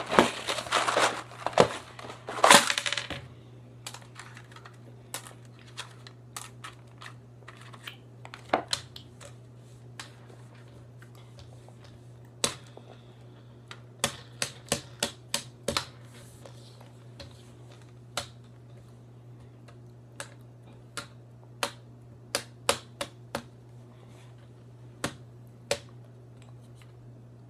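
A cardboard box of jelly beans is handled for about the first three seconds. Then come scattered sharp finger taps on a phone screen lying on a wooden table, irregular and in short spurts.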